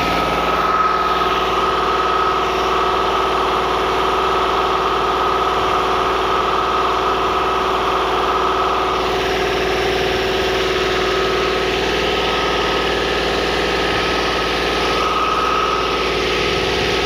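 Tractor engine running steadily at idle, with a high whine that fades out about halfway through and comes back near the end.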